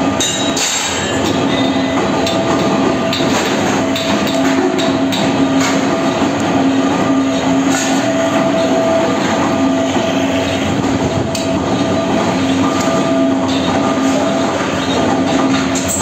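Foundry machinery running with a steady, loud roar and a constant hum, with scattered light metallic clinks.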